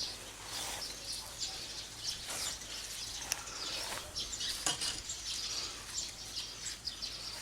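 Small birds chirping and calling repeatedly, with a few brief rustles or soft knocks scattered through.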